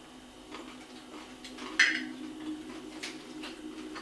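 A metal spoon clinking sharply once against a ceramic dish, with a few faint clicks of handling around it.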